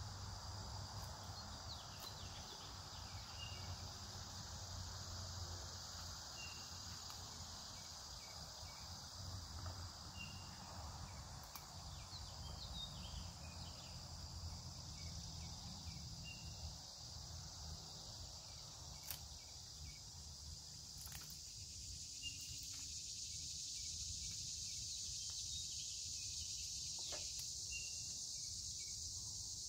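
Steady outdoor insect chorus, a continuous high-pitched shrill, with a short chirp repeating every few seconds. A few isolated sharp clicks stand out now and then.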